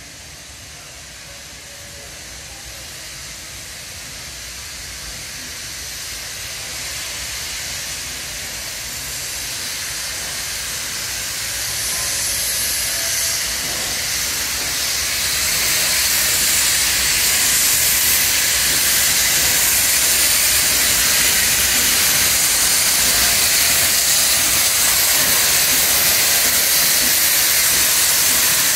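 LNER Class A3 Pacific steam locomotive 60103 Flying Scotsman running into the station with its train, a steady hiss of steam growing louder as it approaches and levelling off as it comes alongside.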